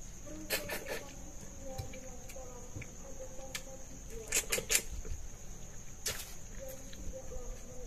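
Crickets chirring steadily at night, with short sharp smacks and clicks of someone eating by hand, loudest in a quick cluster a little past halfway.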